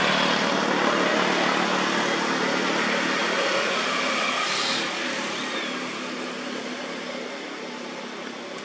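A road vehicle passing, a steady noise that slowly fades away as it recedes.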